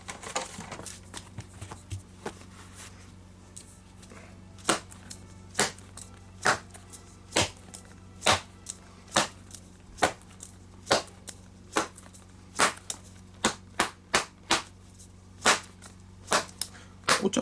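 The leather pocket of a baseball glove being struck over and over with a ball to pound it into shape. Light taps at first, then sharp pops about once a second from about four seconds in.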